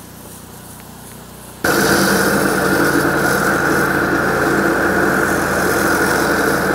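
Pressure washer engine running steadily, starting abruptly and loud about a second and a half in, after a faint low hum.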